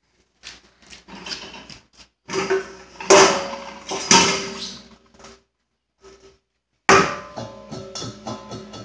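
Dishes clinking and clattering as a dishwasher is unloaded: a string of sharp knocks, with two loud ringing hits about three and four seconds in. After a short pause a sharp knock starts a quick run of clinks near the end.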